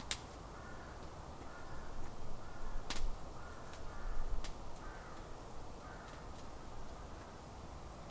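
A bird of the crow family gives a faint series of short, harsh calls, about eight of them over several seconds. Two sharp clicks sound in the middle.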